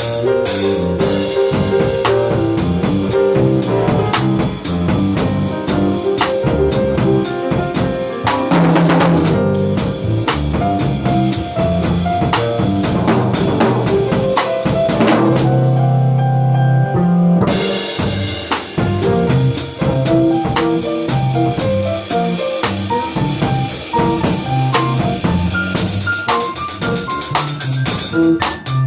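Live funk jam: a drum kit playing a busy, syncopated groove with snare, rimshots and kick, over a bass line and higher melodic notes. A little past halfway the drums drop out for a moment while a low bass note holds, then the groove comes back in.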